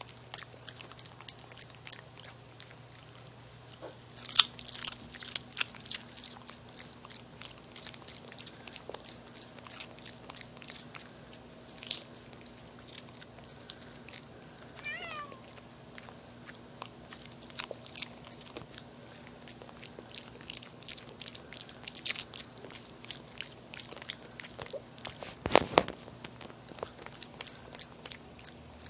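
Boston terrier chewing a raw carrot: irregular crisp crunches and bites throughout, the loudest snap about four seconds in and another heavy crunch near the end.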